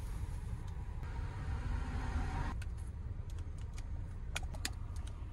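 Steady low rumble of an idling car heard from inside the cabin, with a short hiss that cuts off sharply about two and a half seconds in. A few keystrokes on a laptop keyboard follow in the second half.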